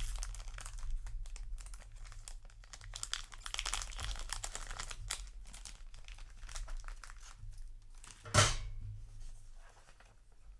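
Foil trading-card booster pack crinkling and tearing as it is opened by hand, with one louder, sharp rip about eight seconds in and quieter rustling near the end.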